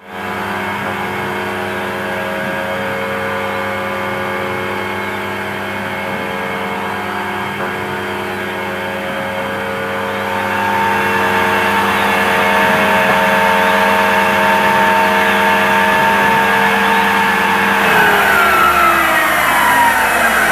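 CNC milling machine cutting a metal part with coolant spraying. The spindle gives a steady whine of several tones that gets louder about halfway through, then winds down with a falling whine near the end.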